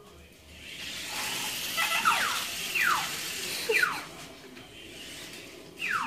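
Short, high squealing calls from a small animal, each falling quickly in pitch, about five of them from two seconds in, over a brief rush of hiss.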